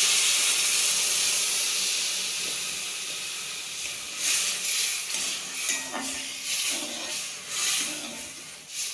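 Coconut milk poured into a hot kadai of fried onions and spices, hitting the oil with a loud hiss and sizzle that slowly dies down. From about four seconds in, a metal spatula stirs and scrapes the pan in uneven strokes while the milk keeps sizzling.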